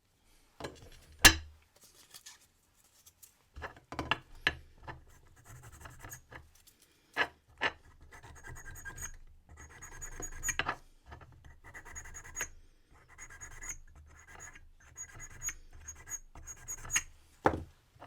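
Hand file rasping on a brass key blank in a run of short strokes, filing down the wafer marks to cut an impressioned key. Sharp clicks and knocks come between the strokes, the loudest about a second in.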